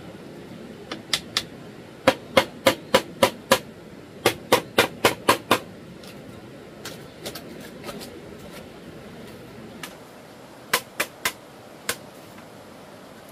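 Sharp knocks of a hand tool striking wood, in quick runs: a few about a second in, then two runs of six strokes at about three to four a second, and four more near the end, over a steady background hiss.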